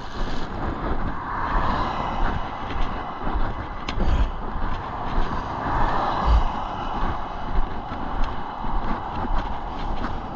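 Road traffic: cars passing close by, their tyre and road noise swelling twice, around a second or two in and again around six seconds in.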